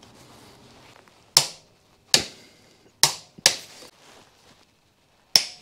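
Click-type torque wrench clicking as it reaches its set 25 newton metres on the rear shock absorber mounting bolts. There are five sharp clicks, irregularly spaced, and the first comes about a second and a half in.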